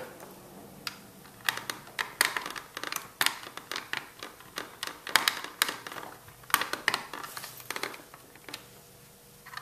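Irregular clicks, taps and short scrapes of a screwdriver and fingers working at the plastic housing of a climate control unit, prying at the fastenings of its blower fan motor.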